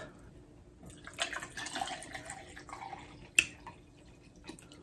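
Wet liquid sounds, sloshing and dripping, for a couple of seconds, then a sharp click about three and a half seconds in and a softer one near the end.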